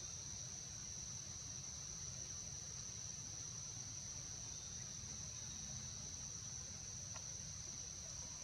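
A steady, unbroken high-pitched insect drone from a chorus of insects, holding one pitch throughout, over a faint low rumble.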